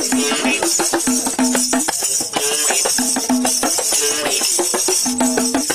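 A hand-held folk instrument played in a fast, even rhythm: short pitched notes with a steady jingling rattle over them.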